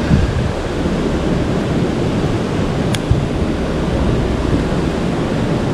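Steady rush of fast river current, with a single sharp click about three seconds in.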